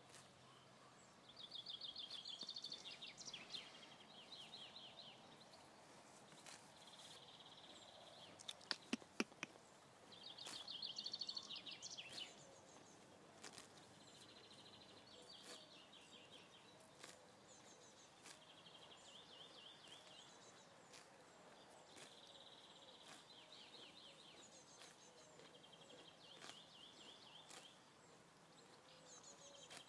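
Faint outdoor ambience with a high, rapid trill that repeats every two to three seconds, each lasting about a second. Scattered soft clicks run under it, with a short burst of louder clicks about nine seconds in.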